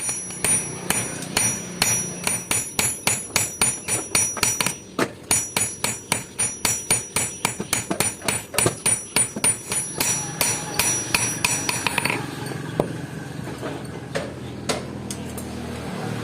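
Blacksmith's hand hammer striking hot steel on an anvil, forging an old file into a knife blade: a quick, even run of about four blows a second with a high ringing, thinning to a few scattered blows from about twelve seconds in.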